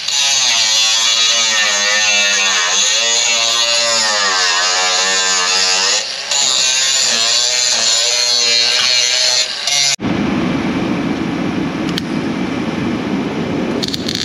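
Cordless angle grinder grinding back cracked steel bracing before a weld repair, its whine dipping and rising in pitch as it bites, with two brief drops. About ten seconds in it gives way abruptly to the steady crackle of arc welding.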